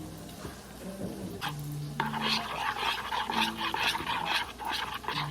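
A spoon working in a small bowl of honey-butter-lemon glaze, scooping and stirring with repeated scraping strokes that start about two seconds in, over background music.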